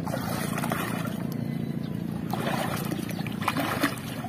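Water splashing and sloshing as a person wades and works with hands under the surface, loudest in the first second and again from about halfway to near the end, over a steady low hum.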